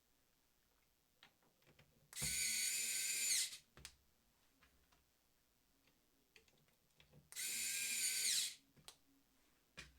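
Parkside PASD 4 C3 4 V cordless electrician's screwdriver motor whining in two runs of about a second each, about two seconds in and again about seven seconds in, as it drives terminal screws. Small clicks fall in the gaps between the runs.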